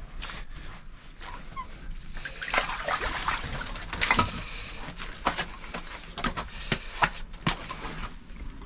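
Water splashing and sloshing in an ice-fishing hole, with many sharp knocks and clicks, as a hooked burbot is hauled up out of the hole.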